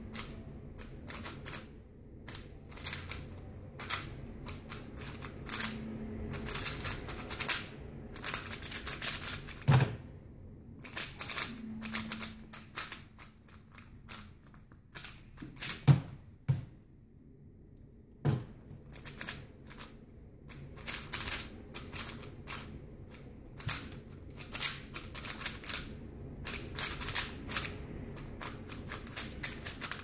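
Yuexiao Pro M stickerless 3x3 speedcube being turned at speed: rapid plastic clicking in quick flurries with brief pauses, quieter for a few seconds mid-way. A few low thuds come in between, as the hands hit the laptop to stop and start the timer.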